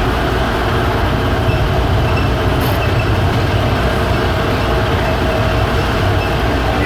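Airport underground people-mover train running, a steady low rumble with no break in it.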